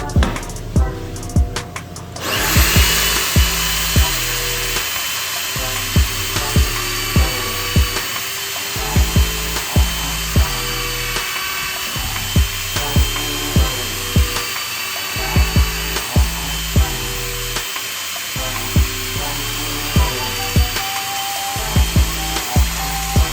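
Background music with a steady beat. From about two seconds in, a drill press motor starts and runs steadily under it, a continuous high whine and hiss.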